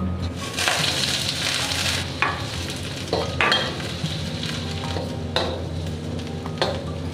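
Food sizzling in hot oil in a pan, stirred with a spatula, with louder sweeps every second or two as the food is turned over.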